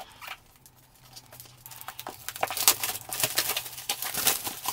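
Plastic shrink-wrap crinkling and tearing as it is pulled off a boxed tablet. The irregular crackling starts about a second and a half in and gets busier towards the end.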